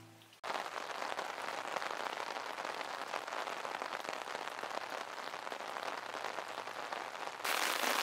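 Steady rain falling and pattering on a hard surface. It starts abruptly about half a second in and gets louder near the end.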